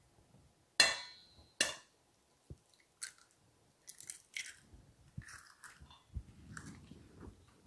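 An egg tapped twice against the rim of a stainless steel mixing bowl, each knock ringing briefly in the metal, followed by the shell cracking and crunching as it is broken open over the bowl.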